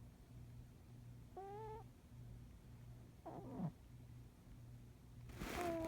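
A 17-year-old cat snoring in its sleep: a low, faint snore that rises and falls with each breath. It is broken by short squeaky whistles on the breath: one about a second and a half in, a falling squeak around three seconds in, and a louder, noisier squeak near the end.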